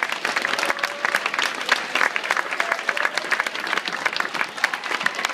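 Audience applauding: dense, steady clapping from many hands, with a few faint voices calling out.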